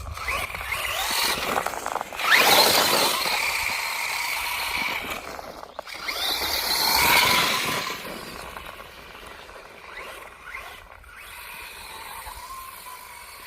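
FTX Outlaw RC truck's electric motor and drivetrain whining under throttle in two strong surges with rising pitch, about two seconds in and again about six seconds in, then quieter.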